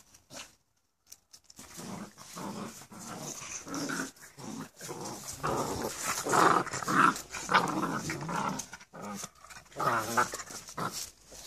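A vizsla puppy and a pug play-fighting, with repeated growls in short bursts that start about a second and a half in, loudest in the middle and again near the end.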